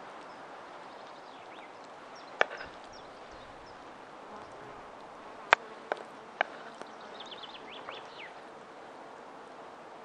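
Metal spoon knocking against a wooden bowl and an avocado skin while scooping salad: four sharp clicks, one about two and a half seconds in and three close together in the middle. Near the end a bird gives a quick run of short chirps over a steady outdoor background.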